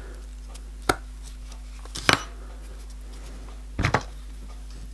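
Scalpel blade cutting a thin strip of felt against a bench mat: three sharp taps spread over about three seconds, over a steady low hum.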